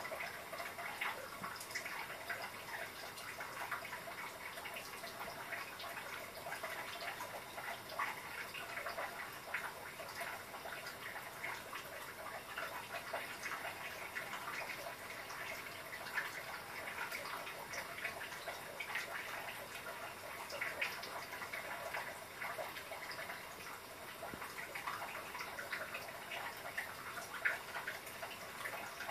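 Tabby cat eating food scooped from a bowl with its paw: a steady run of small wet clicks and smacks as it licks and chews.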